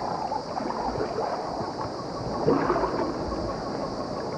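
Rustling, swishing and shuffling of an African elephant herd moving and grazing through tall floodplain grass, with scattered small knocks, under a steady high hiss.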